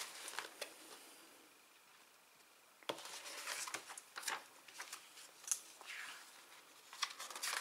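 Paper pages of a sticker album being handled and turned. After about three quiet seconds comes a sharp tap, then a few seconds of rustling and flapping pages.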